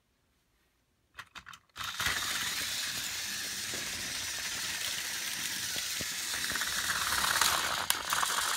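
Silent for about a second, then a few clicks, then battery-powered Trackmaster toy engines running on TOMY plastic track: a steady whirring, rattling gear-motor sound with a couple of sharp clicks near the end.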